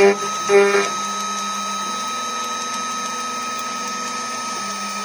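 CNC router spindle running steadily at about 12,000 rpm, with a 4 mm two-flute end mill milling aluminium. Two short, louder, pitched bursts come in the first second as the cutter bites into the metal.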